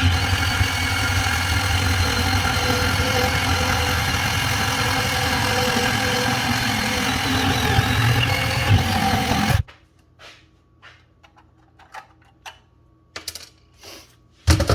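Milwaukee M12 2429-20 cordless bandsaw running as it cuts through schedule 40 pipe, a steady motor and blade sound that stops abruptly about nine and a half seconds in. A few light clicks and knocks follow, with a sharper knock near the end.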